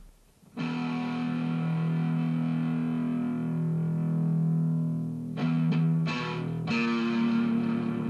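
Soundtrack music on distorted electric guitar, held notes starting about half a second in and moving to new notes about two-thirds of the way through.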